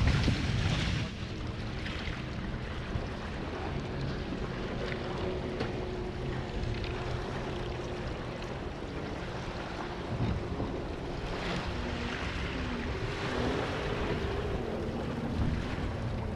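Water rushing and splashing past the hulls of a Hobie 16 catamaran under sail, with wind buffeting the microphone. It is louder for the first second, then settles into a steady wash.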